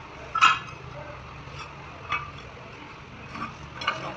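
Cut tile pieces clacking and clicking against each other and the concrete floor as they are set down and slid into place: one sharp clack about half a second in, then a few lighter clicks. A steady low hum runs underneath.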